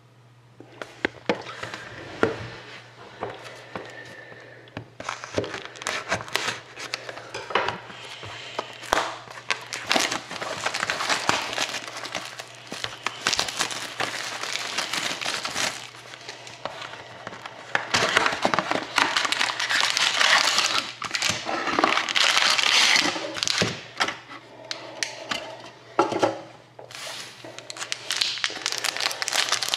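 Trading-card pack wrappers crinkling and tearing as hands open and handle the packs, in uneven rustling spells with sharp crackles.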